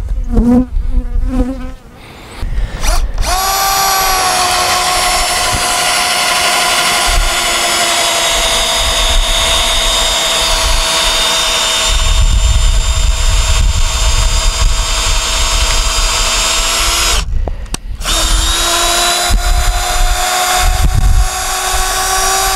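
Honey bees buzzing close to the microphone, then a cordless drill spins up about three seconds in and runs steadily for about fourteen seconds, stops for a moment, and runs again for a few more seconds.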